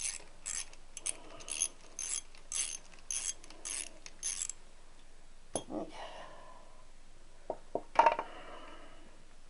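Socket ratchet wrench with a deep socket clicking back and forth, about two strokes a second for roughly four and a half seconds, as a nut is undone. A few separate metal clinks and knocks follow near the end.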